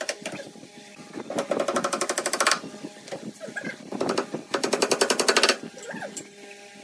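Claw hammer driving nails through a thin panel into a pine cabinet frame, in two quick runs of many light blows, the second about four seconds in, with a few scattered knocks between.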